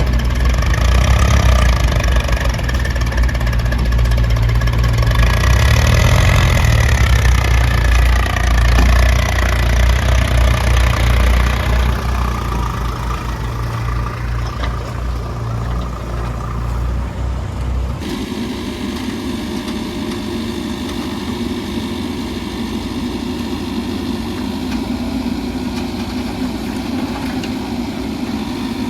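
Mahindra backhoe loader's diesel engine working under load, with pitch rising and falling for the first dozen seconds. It then settles to a steadier, quieter running, changing abruptly about two-thirds of the way in.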